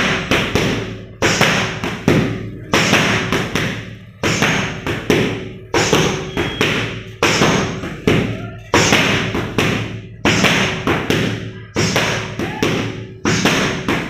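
Boxing gloves striking padded focus mitts in a steady rhythm of thuds, a little over one a second.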